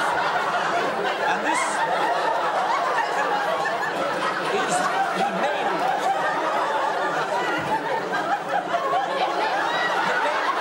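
Studio audience laughing steadily, a continuous wash of laughter reacting to a slapstick custard-pie gag.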